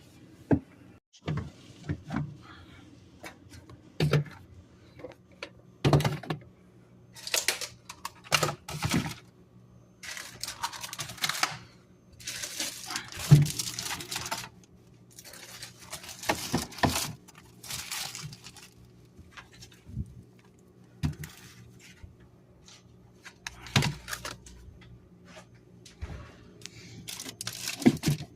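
Kitchen handling sounds: scattered knocks and clatter of items and containers being picked up and set down, with several longer rustling bursts of a second or two in the middle.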